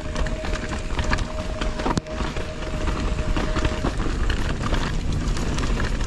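Mountain bike descending a rocky trail: tyres knocking and rattling over rocks, the bike clattering, with wind rumble on the microphone. A steady thin whine holds for the first four seconds, then stops.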